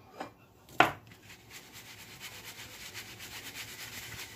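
A spoon knocks twice against the rim of a sieve, then the sieve is shaken steadily, ground anise and sesame rasping through its mesh in a rapid, even rhythm.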